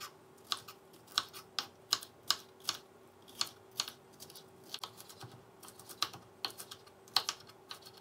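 Chef's knife chopping green bell pepper on a wooden end-grain cutting board: sharp knocks of the blade on the board, about two a second, unevenly spaced.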